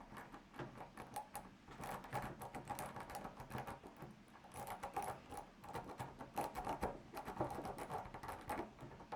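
Multipick Elite 'Abona' rake pick being raked in and out of a tensioned padlock's keyway: a faint, fast, irregular clicking and rattling of the pick over the pin stacks.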